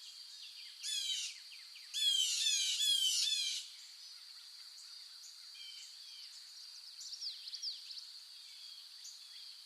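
Tropical forest ambience: a steady high-pitched insect drone, with birds calling in runs of quick descending whistled notes. There is a short run about a second in, a louder, denser series from about two to three and a half seconds, and then scattered fainter calls.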